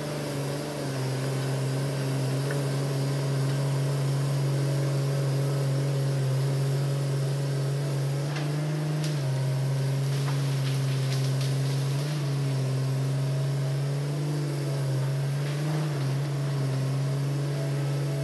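Hitachi Zaxis 200-5G excavator's diesel engine running steadily under load as the machine tracks along, its pitch dipping and rising slightly a few times. A few light clicks come near the middle.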